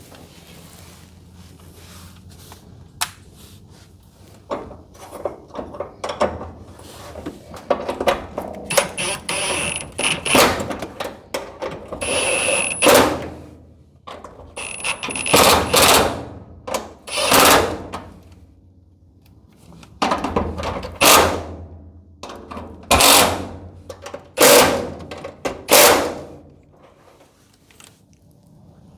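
Hands being cleaned off after greasy work: a series of rough rubbing and rustling strokes, each about a second long, coming in bunches with short pauses between them.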